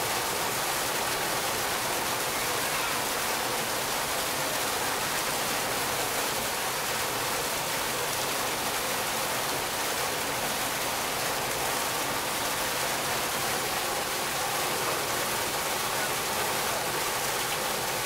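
Artificial waterfall fountain: a single stream of water falling from a high ledge and splashing steadily into a shallow pool.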